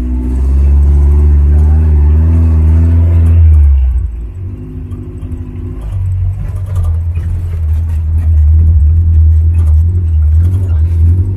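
Off-road jeep engine running under changing load, with a heavy low rumble. The engine note wavers, eases off about four seconds in, then picks up again.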